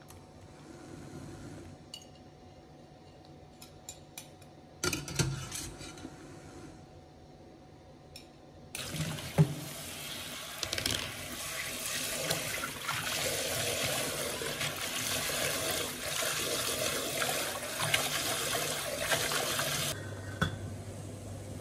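Kitchen tap spraying water onto leafy greens in a stainless steel sink: a steady rush of water that starts about nine seconds in and cuts off suddenly near the end. Before it, a few faint knocks and clinks of kitchenware.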